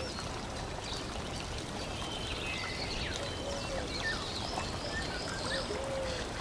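Nature ambience track: a steady rush of running water with scattered short bird chirps and calls over it.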